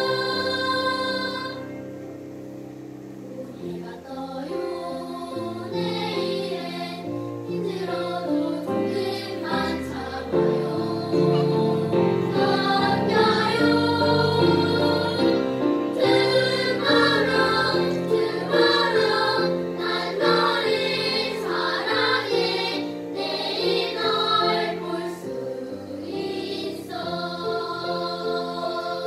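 Children's choir singing with grand piano accompaniment. The song opens quietly and then grows fuller, ending on a held chord.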